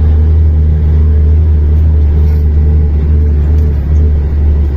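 Mercedes-Benz Axor 2644 truck's six-cylinder diesel engine pulling steadily in third gear, low range, at a constant, loud drone.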